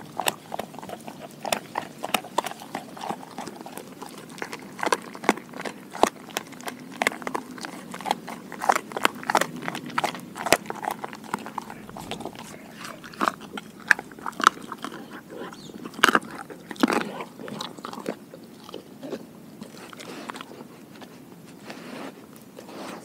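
Doberman chewing a raw pig ear, a steady run of wet crunches and sharp cartilage clicks that thin out over the last few seconds.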